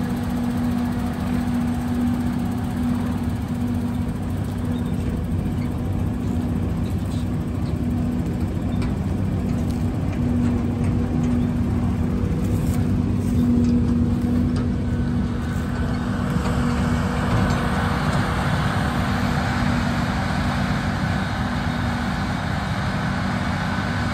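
Heavy diesel engines running steadily: a silage truck moving slowly past close by, with a forage harvester chopping corn beyond it. A higher hiss grows in about two-thirds of the way through.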